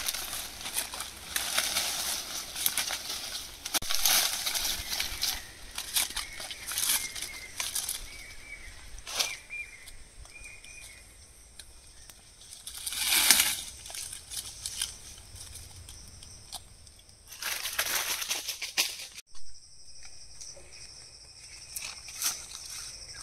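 Dry fallen leaves rustling and crunching as hands and feet move through the leaf litter while mushrooms are picked from the forest floor, with a few louder bursts of rustling. Near the end the rustling stops suddenly, leaving a steady high-pitched hum.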